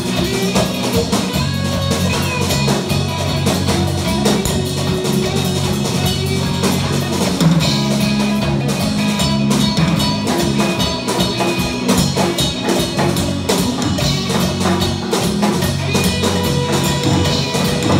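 A live rock band playing with electric guitars, a bass guitar, a drum kit and a djembe: a steady, loud groove with a moving bass line and constant drum hits.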